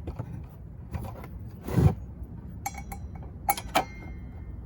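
Hand work on a circular saw during a blade change: a short scrape, then a few sharp metallic clicks and clinks with a brief ring, as the spindle lock is pressed and the hex key and arbor bolt are worked.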